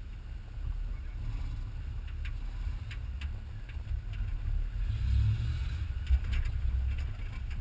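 Off-road vehicle driving uphill on a rough track: low engine and drivetrain rumble with sharp knocks and clatter from the body as it goes over bumps. The rumble swells about five seconds in, with one sharp knock.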